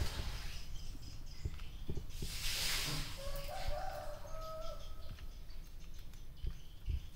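A short, wavering animal call, about a second long, a little past three seconds in, just after a soft whoosh, over steady background noise with a few light knocks.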